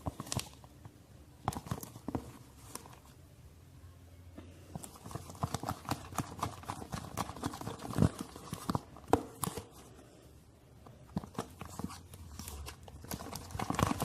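A spoon stirring thickening slime in a pot: irregular clicks and knocks of the spoon against the pot, busiest in the middle and again near the end.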